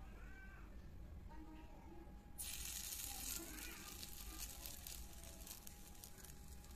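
Malpua batter sizzling in hot fat in a miniature pan. The sizzle starts suddenly about two and a half seconds in and then keeps on steadily.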